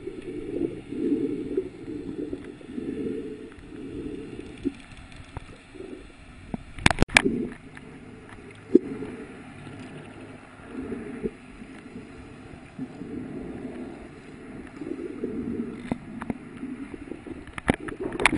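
Muffled water sloshing and gurgling, heard through a camera held just under the surface. It comes in uneven surges, with a couple of sharp knocks about seven seconds in.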